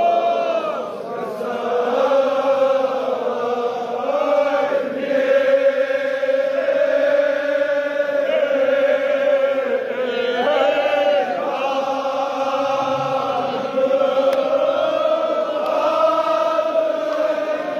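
Crowd of men chanting a Kashmiri marsiya, a Shia mourning lament, in unison: long held notes that slowly rise and fall, phrase after phrase.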